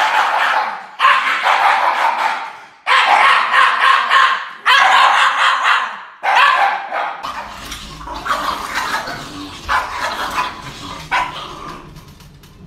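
Two Shiba Inus howling together in long, loud yowling cries of about a second each, one after another. About seven seconds in, quieter and shorter dog barks follow.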